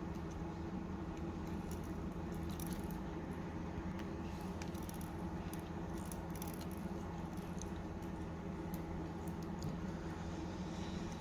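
Faint, scattered small clicks and taps of tools on small phone parts as an iPhone is being reassembled, over a steady low hum.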